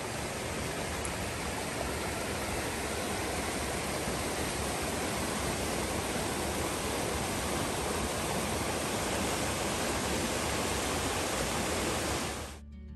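Steady rushing of a shallow river's running water, close by; it cuts off suddenly near the end.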